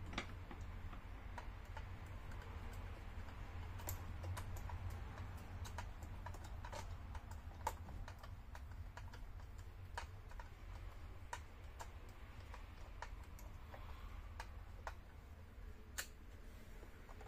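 Light, irregular metallic clicks and ticks from the chain and guide bar of a Stihl MS 271 chainsaw being handled: the chain is drawn along the bar by hand, then a screwdriver works at the bar. A steady low hum runs underneath.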